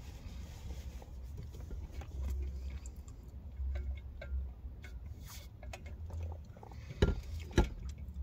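Sipping through a straw from a large insulated tumbler, with small scattered clicks and mouth sounds, over a low steady rumble. Two sharp knocks near the end as the tumbler is handled.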